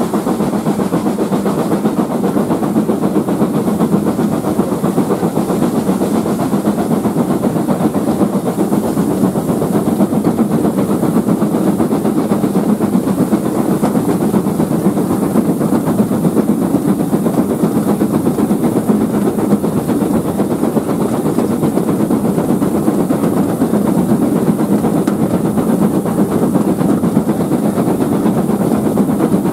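Steam-hauled train running at speed, heard from an open carriage window: a loud, steady mix of wheels on the rails, the locomotive's steam exhaust and rushing air.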